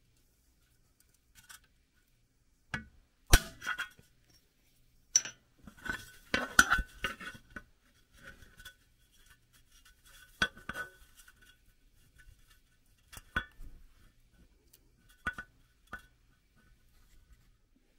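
A punch struck against a sheet-metal air cleaner base, breaking out a stamped knockout: irregular sharp metallic strikes, some in quick pairs, each leaving the thin metal ringing briefly.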